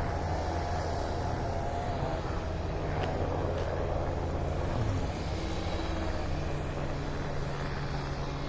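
Steady engine drone: a low, even hum with a faint wavering higher tone above it.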